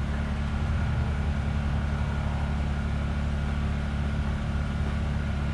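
Steady low hum of a vehicle engine idling, running evenly without change.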